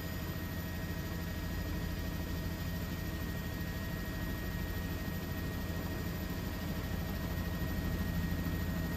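Steady aircraft engine drone: a low hum with a thin constant whine above it, holding even with no rise or fall.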